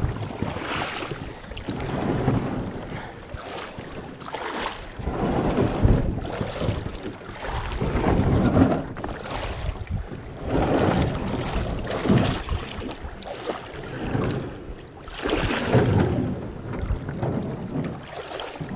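Wind buffeting the microphone in uneven gusts, with water rushing and splashing along the hull of a small aluminium boat under way.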